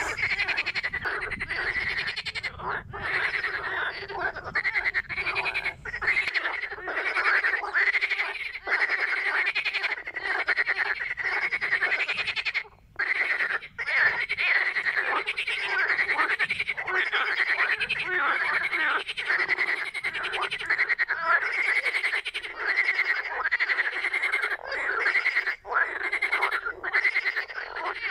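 A chorus of many frogs croaking continuously, calls overlapping, with a brief lull about halfway through.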